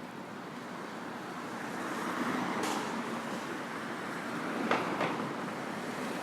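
City street traffic noise, a steady wash of passing vehicles that swells as one goes by about two seconds in. A brief high hiss follows, and a little later two quick sharp knocks come close together.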